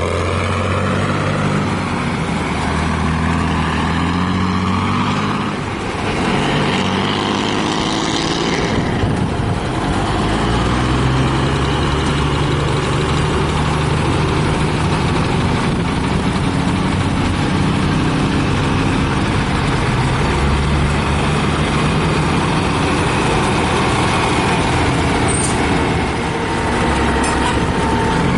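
Heavy vintage truck engines running as the trucks pull away and drive past. The engine note changes pitch a few times, with a short hiss of air about eight seconds in.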